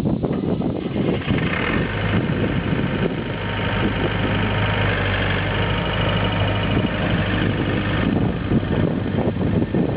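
Scat Trak 1700C skid steer loader's four-cylinder Perkins diesel engine running steadily. Its sound swells from about two seconds in and eases back at about eight seconds.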